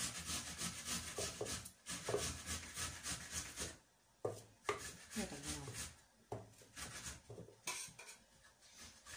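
Kitchen food preparation: quick rhythmic rasping strokes, about five a second, for the first few seconds, then a short pause, a couple of sharp knocks and a few softer scrapes.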